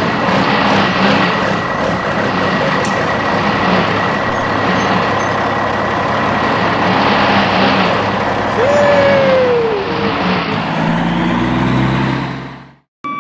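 Heavy truck engine running steadily, with a brief falling squeal about nine seconds in; the engine cuts off abruptly near the end.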